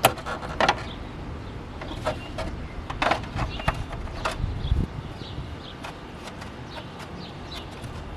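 Sharp plastic clicks and knocks from the car's air-intake parts being handled and unclipped by hand, the loudest at the very start, then a few more scattered through with lighter ticks toward the end.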